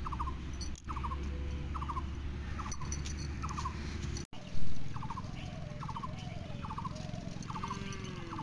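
An animal's short trilling call, repeated about once every second. A brief loud thump comes about four and a half seconds in.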